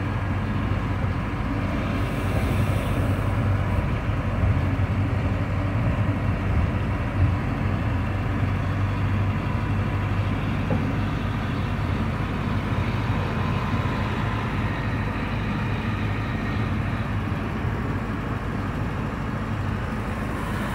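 Inside a moving city bus: steady engine drone and road noise in the cabin, with no change in pace.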